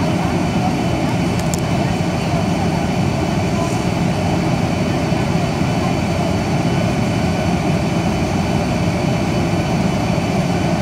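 Steady jet engine and airflow roar heard inside the cabin of a Boeing 737 on approach, with a few faint steady tones in the noise.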